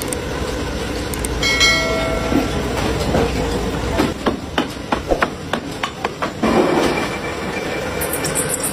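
Matchstick factory machinery running with a steady rumble and rattle. There is a short steady tone about two seconds in, and a string of sharp clacks from about four to six seconds in.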